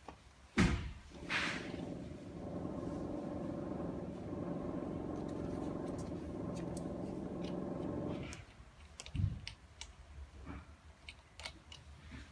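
Roll cutting machine's motor starting with a sharp click and running with a steady hum for about seven seconds, then stopping. A thump and a few light clicks follow as the roll and its end chuck are handled.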